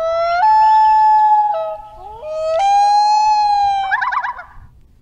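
Two long blasts of a pitched horn, each sliding up into a held note. The second blast ends in a quick wavering trill that fades.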